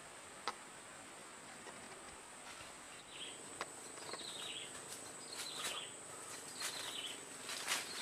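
Faint rainforest ambience: a steady high insect drone, with a short falling chirp repeated about once a second from about three seconds in. Scattered light cracks and rustles of footsteps in leaf litter and undergrowth grow busier towards the end.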